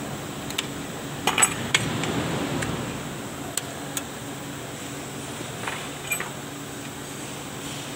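Light metal clinks and clicks from the steel hardware of a Toyota Hiace rear drum brake (shoes, springs and fittings) as it is handled and fitted, with a short cluster of clinks about a second and a half in, over a steady low hum.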